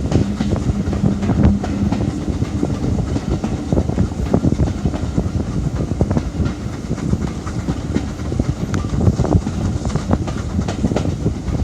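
Railway carriage on a heritage steam line running along the track, its wheels clattering over the rail joints with many sharp knocks over a steady rumble. A brief steady tone sounds in the first two seconds.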